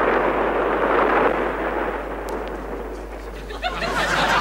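Explosion noise dying away in a long rush. Music starts up near the end.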